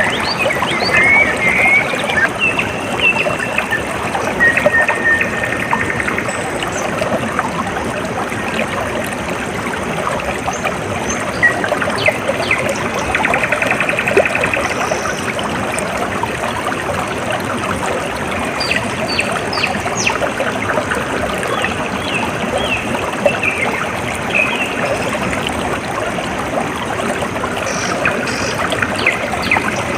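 Stream water trickling and flowing steadily, with small birds chirping here and there, mostly near the start and again in the second half.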